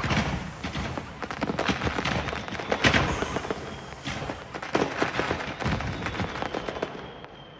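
Fireworks going off in a dense run of bangs and crackles, the loudest burst about three seconds in, thinning out and fading near the end. A faint, steady high whistle runs through the second half.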